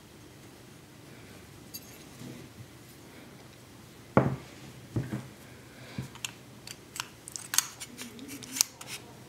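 Handling noise from an aluminium Element Case Vapor bumper frame and an iPhone 4: two soft knocks about four and five seconds in, then a quick run of sharp clicks and taps as the phone is brought to the frame.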